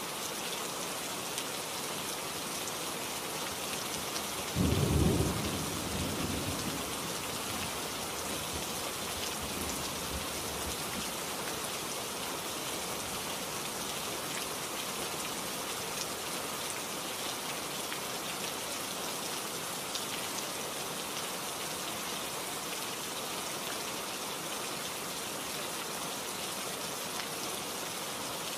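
Steady hiss like falling rain, with one low rumble like thunder about four and a half seconds in that dies away over about two seconds.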